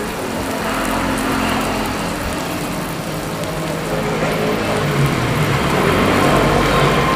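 Meat and fish sizzling on a Lao tabletop barbecue grill (sin dat), a steady hiss.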